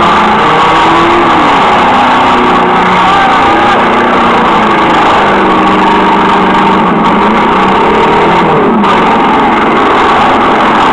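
Several demolition derby car engines running and revving at once, their pitches rising and falling against one another. Loud throughout.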